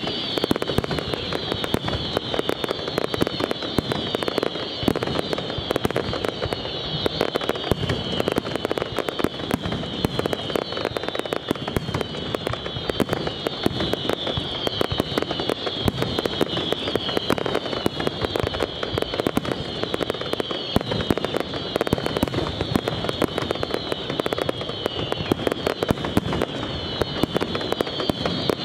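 Aerial fireworks display: a dense, unbroken barrage of shell bursts, bangs and crackling. Over it runs a continuous high whistling that falls in pitch again and again.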